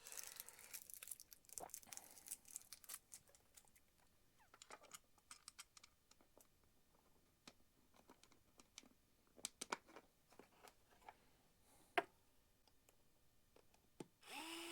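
Faint handling noises, scattered small clicks and taps of screws and plastic fittings being worked by hand, with one sharper click about twelve seconds in. Near the end a small electric motor spins up to a steady whir.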